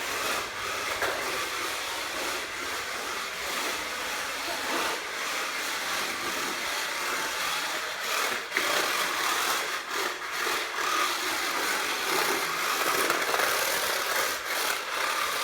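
Lightning McQueen remote-control toy car's small electric motor whirring steadily as it drives, with a few brief dips.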